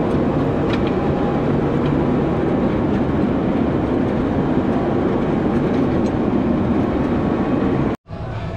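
Tractor engine running steadily under load while pulling a plow through a field, with a few faint clanks from the implement. The sound cuts out abruptly near the end and comes back quieter.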